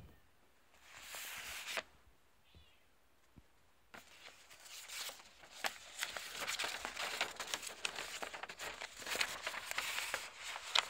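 Paper and a cardboard box being handled: a short rustle about a second in, then from about four seconds a long run of rustling and crinkling with many small clicks and taps as a paper leaflet is taken out and handled.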